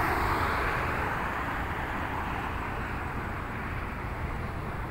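Highway traffic going by: a car passes close with a tyre-and-engine hiss that eases off as it moves away, over a steady low rumble.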